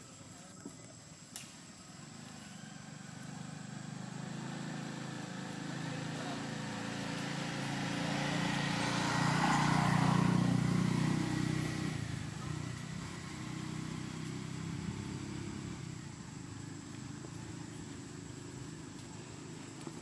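A motor vehicle passing by: its engine grows slowly louder, is loudest about ten seconds in, then fades away.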